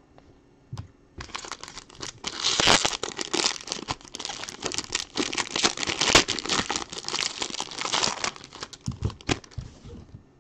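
Silver foil trading-card pack wrapper crinkling and tearing as it is opened by hand: a dense crackle from about a second in, thinning to scattered crackles near the end.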